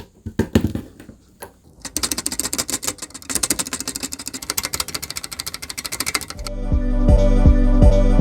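Stabilized keys on a partly built YMDK Melody 96 mechanical keyboard pressed over and over to test the stabilizer sound: a few single clacks, then a fast run of rapid clacking. Background music with a steady bass beat comes in near the end.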